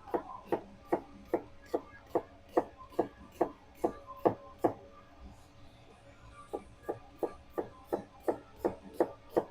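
Rhythmic knocking, about two and a half sharp knocks a second, pausing for about two seconds midway and then resuming.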